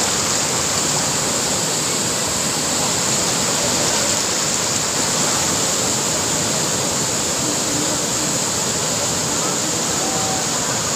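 Steady, loud rushing of water, unbroken throughout.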